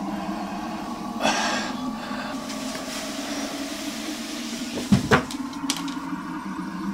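A man slumping down onto a wooden floor, heard as two dull thuds close together about five seconds in. There is a short breathy rush of noise about a second in, over a steady low hum.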